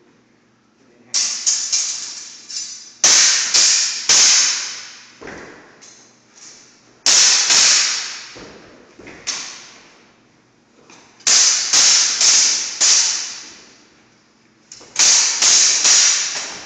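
Hand-and-a-half sword and basket-hilted broadsword clashing in quick exchanges. Each exchange is a burst of two to four sharp clashes that ring briefly, with short pauses between.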